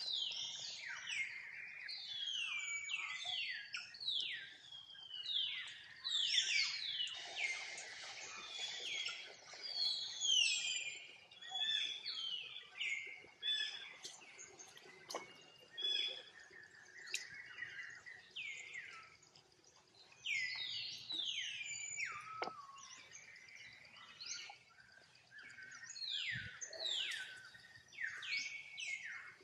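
Many short, high-pitched animal calls, each falling steeply in pitch, repeated in irregular runs throughout, with a few sharp clicks.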